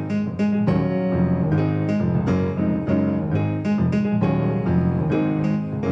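Instrumental piano music, with chords and notes struck at a steady, moderate pace.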